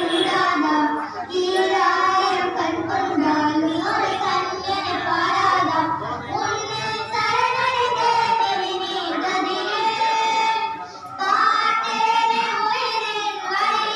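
Children singing a devotional hymn together, with brief pauses between phrases about a second in and again near the end.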